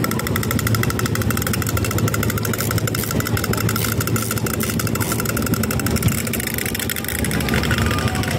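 Wind-up clockwork toys chattering: a fast, even run of mechanical clicks that fades out about five and a half seconds in, over a steady low hum.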